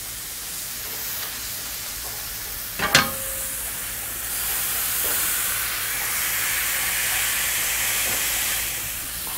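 Ground-beef patty sizzling on a Yoder Flattop steel griddle while it is smashed flat under wax paper with a metal burger press. A sharp metallic clank with a brief ring about three seconds in as the press comes down, then the sizzle grows louder as the meat is pressed against the hot steel.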